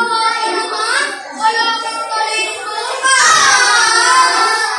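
Children's voices singing, with a louder burst of high, gliding children's voices about three seconds in.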